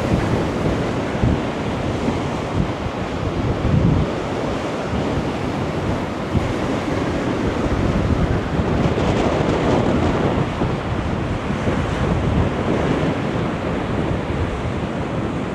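Storm wind buffeting the microphone in gusts over the rush of high-tide waves surging and washing over the promenade.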